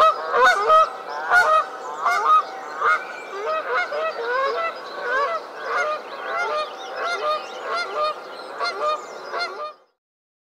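Canada geese honking: many short, nasal calls overlapping at different pitches, several a second, as from a flock. The calling cuts off suddenly about a second before the end.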